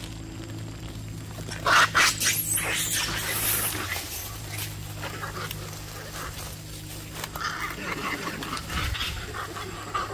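Sharp animal calls: two loud ones about two seconds in, then scattered shorter calls, with another cluster near the end. A steady low hum runs beneath the first half.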